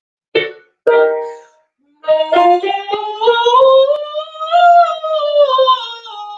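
A woman singing a vocal warm-up exercise. Two short notes come in the first second, then from about two seconds in a sustained sung line climbs in pitch and comes back down.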